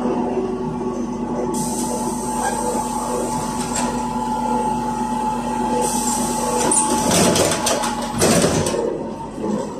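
ZiU-682G trolleybus heard from inside while moving: a steady whine and hum from its electrical equipment, cutting off about seven seconds in, followed by a couple of seconds of clattering and rattling.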